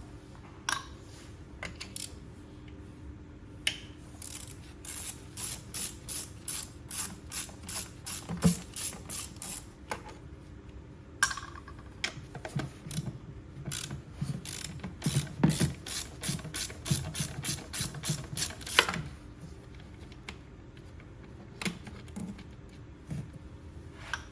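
Socket ratchet clicking in runs of quick, even clicks as a fastener is turned, with a few single clicks between the runs.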